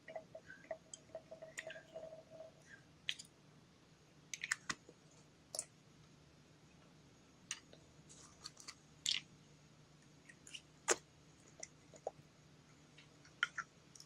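Putty and fluffy slime being kneaded and stretched by hand, giving scattered soft sticky clicks at irregular intervals.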